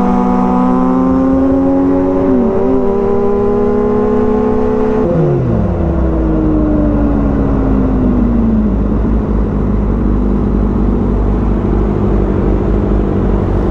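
Inline-four sport bike engine heard from the rider's seat with wind noise, running at a steady cruise and then dropping in revs about five seconds in as the bike slows, settling into low, steady running.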